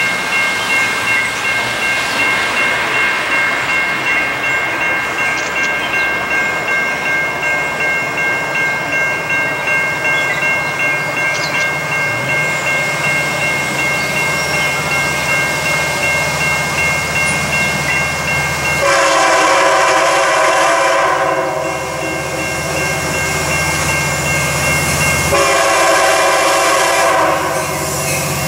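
GMD F59PH-led passenger train approaching and sounding its horn: a long chord about two-thirds of the way in and another starting near the end. Before the horn, a steady high ringing tone with a regular pulse is heard.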